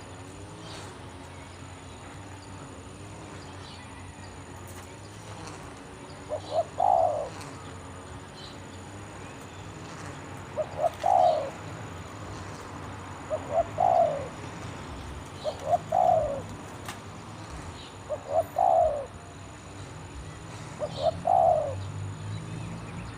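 Spotted dove cooing: its phrase of two or three short notes leading into a longer, louder coo, repeated six times about every two and a half seconds, starting about a quarter of the way in.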